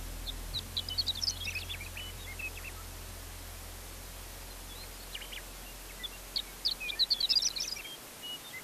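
A small songbird twittering: two bursts of rapid, high-pitched chirps, the first about half a second in and the second around six to seven seconds in.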